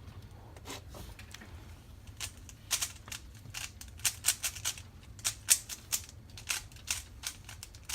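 Rubik's Cube being scrambled by hand: the plastic layers click and clack as they are turned. The turns are sparse at first, then come quickly and irregularly, several a second, from about two seconds in.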